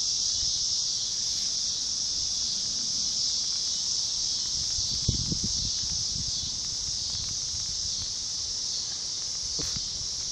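Steady high-pitched chirring of an insect chorus, with light rain starting to fall and a few soft drops or knocks in the middle and near the end.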